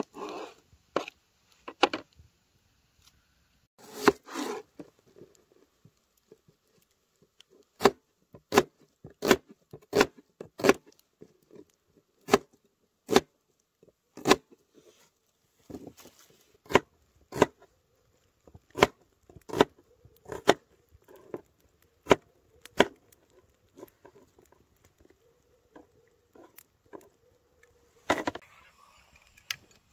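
Knife chopping vegetables on a board: a run of sharp knocks, a few uneven ones at first, then a steady series of about one a second.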